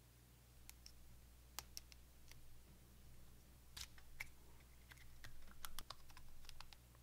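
Small plastic parts of a Nendoroid figure clicking and lightly scraping as its front hair piece is pulled off and the face plate swapped: a faint, irregular scatter of clicks.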